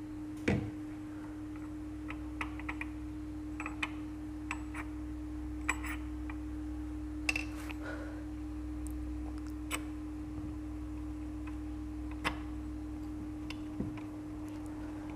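Scattered light metallic clicks and taps, about a dozen at irregular intervals, as engine parts are handled and the balancer drive gear is fitted onto the crankshaft of a Suzuki Gixxer engine, over a steady low hum.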